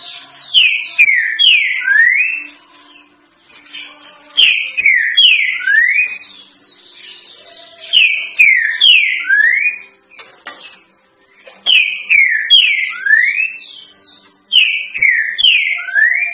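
Green-winged saltator (trinca-ferro) singing its 'três notas boi' song: a phrase that ends in three loud, clear whistled notes, the first two falling and the last rising, led in by softer, higher notes. The phrase repeats five times, about every three to four seconds.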